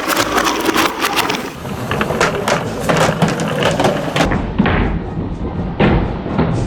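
Die-cast toy cars clattering along a track: a rapid, uneven string of small hard knocks and thuds. The sound changes abruptly about four seconds in.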